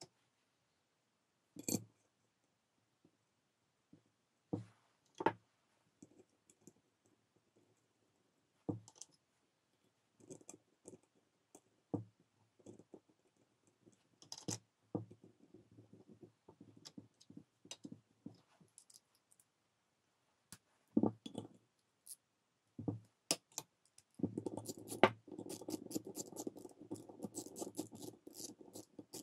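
An aluminium alternator end housing being handled on a cloth-covered table: scattered light clicks and knocks as it is touched, gripped and shifted. About 24 seconds in, a dense grating rub starts as the housing is worked in the hands.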